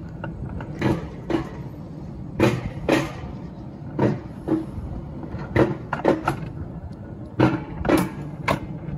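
Alpine mountain coaster cart rolling slowly along its steel rails, over a low rumble. Its wheels clack over the track joints in pairs, about every second and a half.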